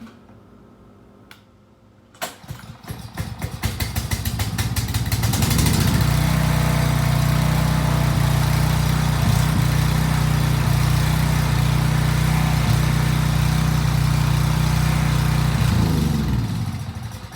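Small gas engine of a Husky pressure washer started and catching about two seconds in, firing faster until it settles into a steady run. Near the end it is shut off with the kill switch and winds down to a stop. The engine starts and runs after a carburettor cleaning.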